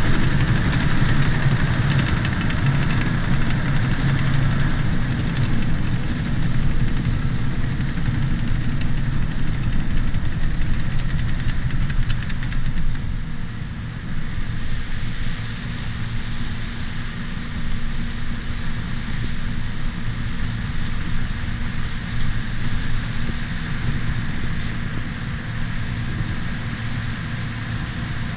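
Bulldozer's diesel engine running steadily with a deep hum, dropping in level about halfway through.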